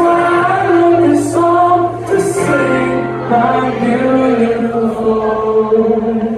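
Live acoustic song: a male singer with acoustic guitar and many audience voices singing along, holding long notes.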